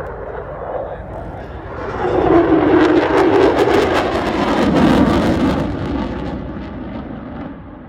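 Lockheed Martin F-35A Lightning II jet passing overhead, its single F135 engine building about two seconds in, loudest and crackling for a couple of seconds, then dropping in pitch and fading as it moves away.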